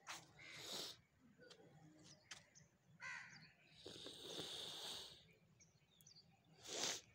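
Crows cawing a few times, faint. Short rushes of noise come soon after the start and again just before the end, the last being the loudest sound.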